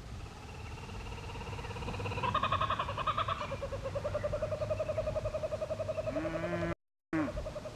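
Laughing kookaburra calling: a rapid, rolling chuckle that swells about two seconds in and breaks off near the end.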